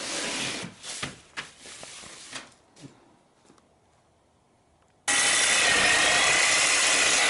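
Scrapes and knocks of a metal exhaust manifold being moved on a workbench, then about five seconds in a reciprocating saw starts cutting through the exhaust manifold's pipe, a loud steady rasp with a thin high whine.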